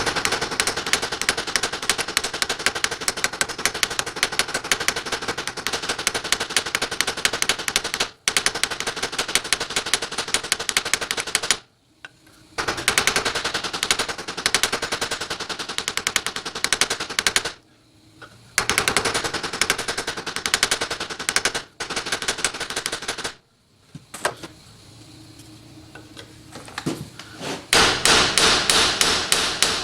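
Rapid, light hammer taps on metal, peening over rivets in a toy pop gun's sheet-metal body. The tapping comes in long runs with short pauses, and near the end it slows to heavier blows about three a second.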